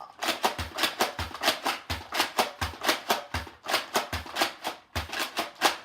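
Loud music with a steady drum beat: a low kick about every 0.7 s with quick, sharp percussion strokes in between.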